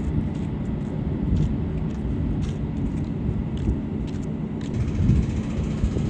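Steady low rumble with a few faint ticks.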